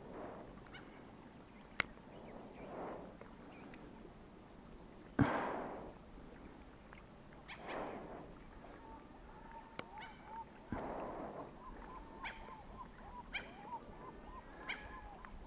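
Gulls giving hoarse, honking calls every two to three seconds, the loudest about five seconds in. A run of faint short peeps comes in the second half.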